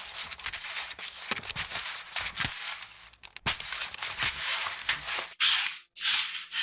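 AI-generated sound effect meant as boots squelching in mud that comes out as gritty crunching and scraping, like sand being shoveled. Crackly noise runs for about three seconds, drops briefly, then turns into regular rasping strokes about every two-thirds of a second near the end.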